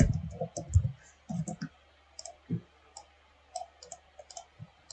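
Computer mouse and keyboard clicks at irregular intervals, with a few soft low thumps in the first second.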